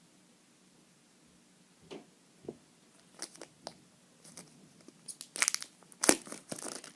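Plastic packaging crinkling and rustling around a puzzle cube, with scattered sharp clicks. It starts about two seconds in and grows busier and louder towards the end.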